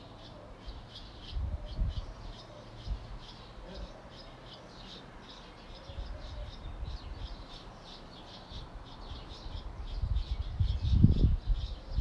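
A chorus of small birds chirping: many short high chirps in quick succession, without a break. Low rumbling surges come and go under it, loudest near the end.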